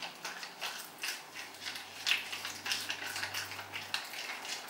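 A plastic face-mask packet being handled and opened, crinkling in short, irregular crackles.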